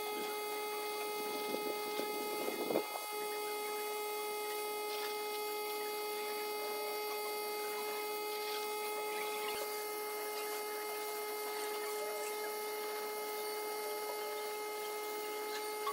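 A steady, high-pitched electrical hum, with a few brief scraping and rustling sounds about two seconds in.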